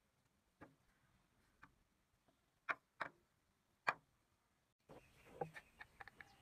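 Small toy wheels with wooden hubs and rubber tyres being set down and handled on a wooden bench: a few sharp, separate knocks in the first four seconds, then a quicker run of small taps and handling noise near the end.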